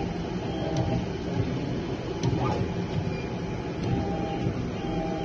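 Automatic tin-soldering machine running: a steady low hum, with faint clicks about every second and a half and a few short whining tones.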